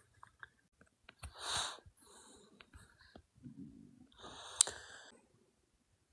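A man breathing close to the microphone, two airy breaths about three seconds apart, with a short low stomach gurgle between them and a few faint clicks.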